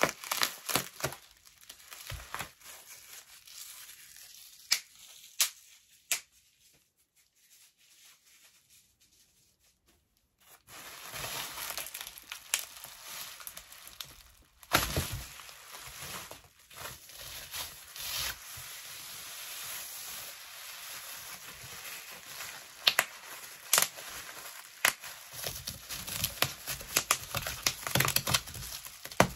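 Plastic bubble wrap crinkling and tearing as it is pulled open by hand, with many sharp crackles. It goes almost quiet for a few seconds in the middle, then crinkles steadily again.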